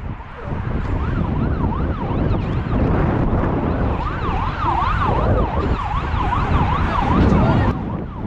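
An emergency vehicle siren in fast yelp mode, its pitch rising and falling about three times a second, over a heavy low rumble of wind on the microphone.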